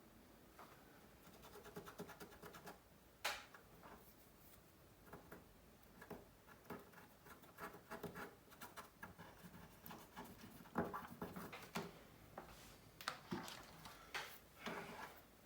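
Faint scraping and light, irregular clicks of small repair tools working against the opened phone's frame and internal parts while the adhesive-stuck charging port is freed.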